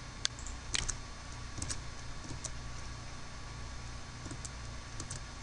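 Scattered sharp clicks from computer mouse and keyboard use, several in the first two seconds and a quick pair near the end, over a steady low hum.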